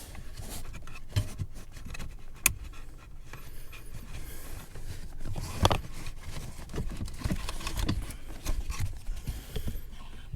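Handling noises from a car's cabin air filter and its plastic housing: irregular scraping and rustling with scattered clicks and knocks, the loudest knock about halfway through.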